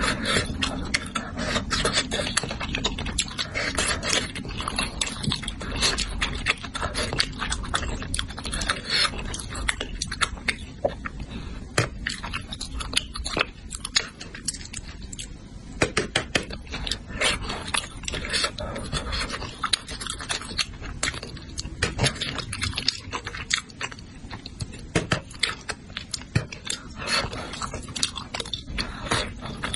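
Close-miked eating of spicy braised fish: continuous chewing and mouth sounds, full of small sharp clicks and scrapes.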